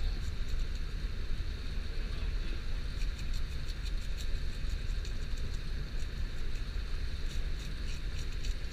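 Steady low rumble aboard a fishing boat at sea, with scattered light clicks of a knife working against a cutting board as a fish is cut open.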